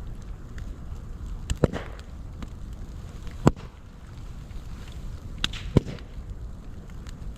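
Open fire of moso bamboo burning with a steady low rumble, broken by three loud sharp cracks and a few smaller snaps as bamboo culms burst in the heat.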